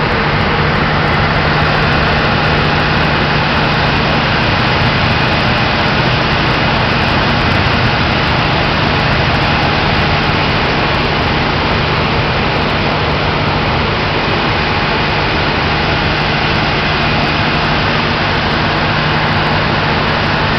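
Heavy marine diesel engines running steadily: a loud, even drone with a constant low hum.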